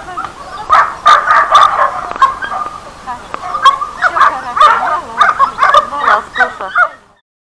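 A dog whining and yelping excitedly in a quick string of short, high cries while it jumps up to be petted; the sound cuts off suddenly about seven seconds in.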